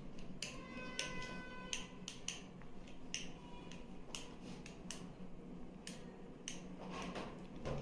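Faint, sharp, irregular clicks and taps as a wire end is handled and touched against the terminal of a lithium battery cell, with a brief thin tone about a second in.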